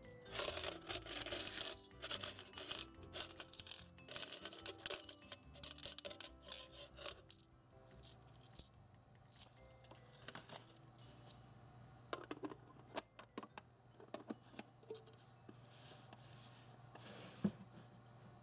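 Coins clinking and dropping into a Super Mario pipe piggy bank, with the bank's electronic game-music sound effect playing over the clatter in the first several seconds. After that the coin clicks come more sparsely.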